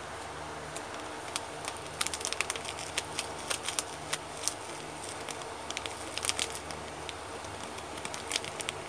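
Irregular small crackles and clicks from a glass of foamy iced drink with ice cubes as chocolate malt powder is poured in from a sachet, over a steady low hum.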